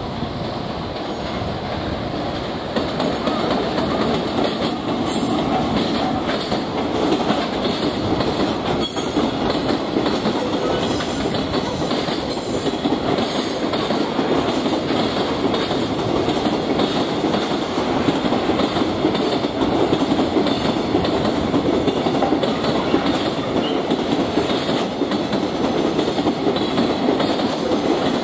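Freight train of container flat wagons behind an EF210 electric locomotive rolling past, a steady rumble of steel wheels on rail with repeated clicks as the wheels cross the rail joints. It grows louder about three seconds in as the wagons come closest.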